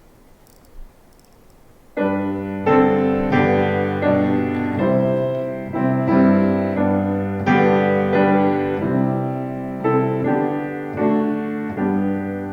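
Piano playing a slow introduction of struck chords to a hymn, starting about two seconds in, with a new chord roughly every second. A faint knock comes just before the playing.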